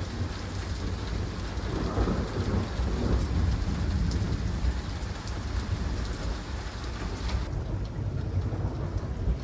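Rain falling steadily with a low rolling rumble of thunder that swells about two seconds in. The high hiss of the rain drops away suddenly near the end.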